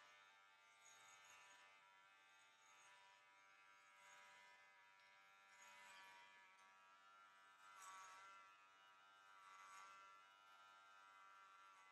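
Faint steady buzz of electric hair clippers running as they shave hair off the head, swelling a little several times.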